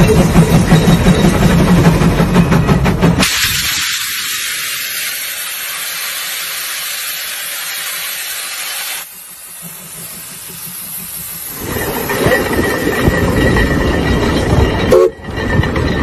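Steam traction engine working under load: a rapid, even beat of exhaust over a low drone. About three seconds in this cuts off abruptly into a loud, steady hiss of steam lasting several seconds. The engine's running sound comes back near the end.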